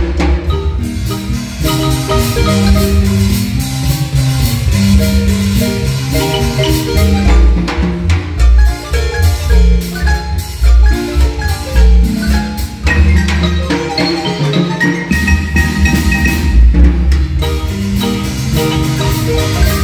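Guatemalan marimba ensemble playing a rhythmic dance tune. Several players strike the wooden keys with mallets in quick runs of notes over a moving bass line.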